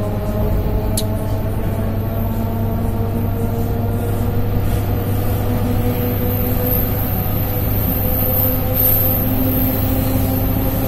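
ER9M electric multiple unit running, with a deep steady electrical hum and a traction-motor whine that rises slowly in pitch as the train picks up speed. There is a single sharp click about a second in.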